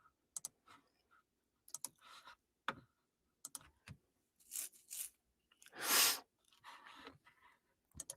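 Quiet, scattered clicks and small taps close to the microphone, like keys or a mouse being worked, with one louder, brief rushing noise about six seconds in.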